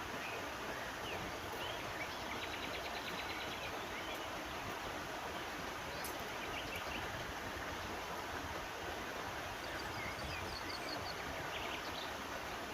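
Steady rushing of a river stream, with birds giving short, scattered chirps and a brief rapid trill a couple of seconds in. A single sharp click sounds about halfway through.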